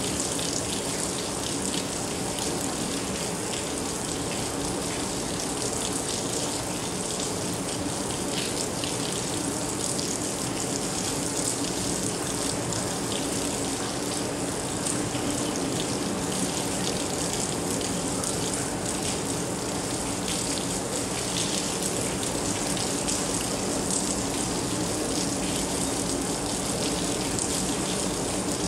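Steady rain falling, a dense patter of drops over a constant wash of noise.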